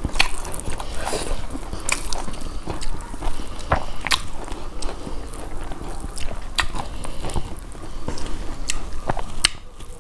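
Eating sounds: chewing and biting, with many short, sharp, irregular mouth clicks as two people eat rice and curry by hand.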